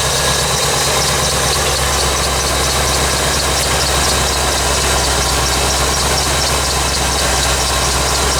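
1985 Corvette's 5.7-litre V8 idling steadily while still cold and warming up, with a light, fast, even ticking over the idle.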